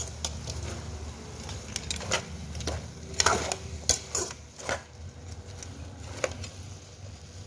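A metal ladle stirs sliced bamboo shoots and pork bones in a metal pot, with irregular clinks and scrapes of the ladle against the pot.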